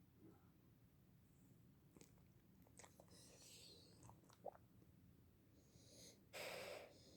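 Sleeping beagle puppy's faint breathing sounds, with a few small clicks and a brief squeak, then one louder, breathy puff of air lasting about half a second near the end.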